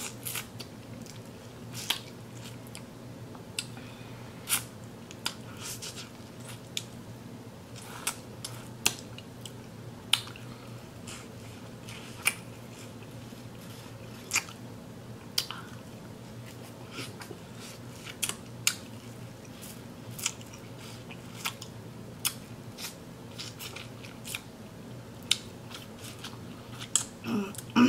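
Close-up mouth sounds of someone biting and chewing boiled corn on the cob: irregular sharp, wet clicks and smacks, one or two a second, as she gnaws the kernels off the cob and sucks out the juice. A steady low room hum runs underneath.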